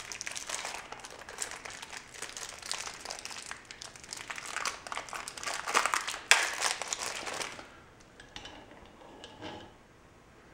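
Clear plastic packaging crinkling and rustling as it is handled and unwrapped, for about eight seconds, followed by a few light clicks as it stops.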